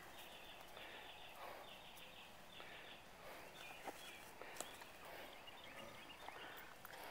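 Faint outdoor quiet: a distant bird calls in repeated short groups of high notes for the first three and a half seconds, with a couple of sharp clicks around four and four and a half seconds in, from footsteps or a leash clip.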